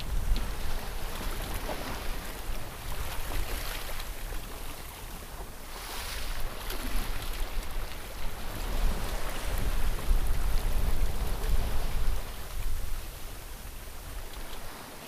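Waves rushing and splashing along the hull of a sailboat under sail in open ocean, with wind rumbling on the microphone. It swells louder a few times, most of all from about two-thirds of the way in.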